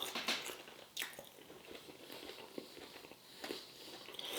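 A person chewing a crispy baked chicken wing close to the microphone, with three sharper crunches.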